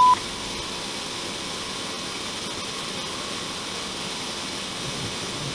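A loud steady beep cuts off just as it begins, giving way to a steady hiss of old-TV static (white noise).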